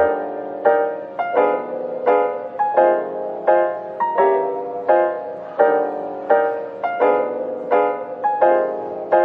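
Background piano music, notes and chords struck at an even pace of about three every two seconds.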